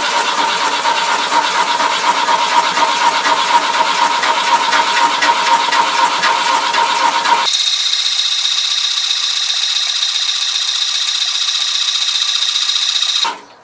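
Starter motor of a 1982 VW Caddy's 1.6-litre diesel, jumped directly with wires, cranking the engine over steadily without it starting. About halfway through, the sound changes abruptly to a thinner, higher whine, and it stops just before the end.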